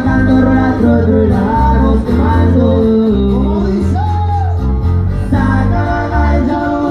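Loud live concert music through a stage sound system: a singer over a band with deep, sustained bass notes, the voice sliding up and back down about four seconds in.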